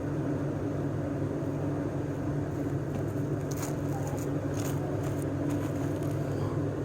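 A 2001 Chevrolet Silverado 1500's 4.8 L V8 engine running at a steady, even speed, with a few faint ticks in the middle.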